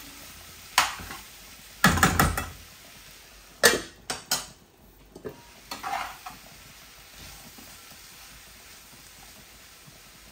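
Spoon stirring papaya and carrot stir-fry in a stainless steel frying pan, knocking and scraping against the pan several times in the first six seconds, over a steady sizzle of frying.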